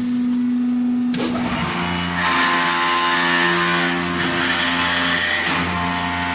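High-speed automatic wood-turning lathe running with a steady motor hum. About a second in, the cutter bites into the spinning wood and a loud hissing cut joins the hum, easing off near the end.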